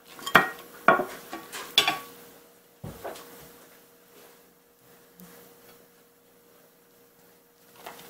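Kitchenware clattering: a rice cooker's inner pot and a plate knock against each other and the counter several times in the first three seconds, each knock ringing briefly, as the pot is lifted off the turned-out cake and set down. After that only faint handling.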